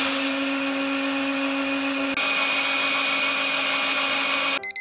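Countertop blender motor running steadily at high speed (about 10,000 rpm), churning a thick mix of liquid seasonings, with a small jump in its sound a little over two seconds in. Near the end it cuts off abruptly and a short electronic beeping jingle starts.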